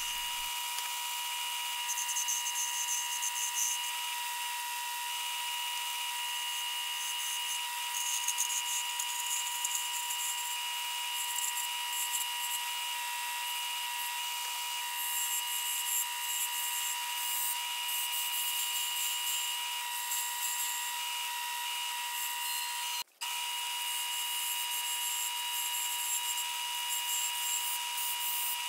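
A small wood lathe runs with a steady high whine while a hand-held turning tool cuts a spinning wooden blank, the cutting coming in repeated hissing passes. The sound drops out for an instant once, near the end.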